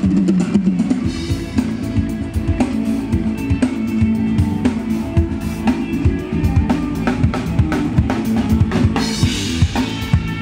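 Band soundcheck: a drum kit playing a steady groove of bass drum, snare and rimshots, with a bass line underneath, amplified through a large stadium PA system.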